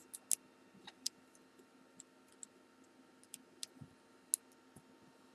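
Small, sharp metal clicks at irregular intervals: a tool slipping and catching against the C-clip on the back of a Kwikset-clone lock cylinder while trying to pry the clip off.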